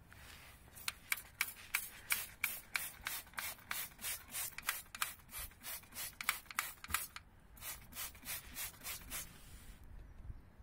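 Hand trigger spray bottle squirting soapy water onto a rear air suspension bag to show up a leak as bubbles. About three quick squirts a second, with a short pause about seven seconds in.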